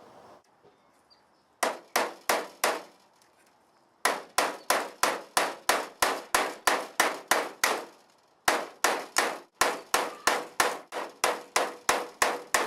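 Hammer driving nails through a wooden window frame into a door, in quick runs of ringing strikes about three a second with short pauses between runs.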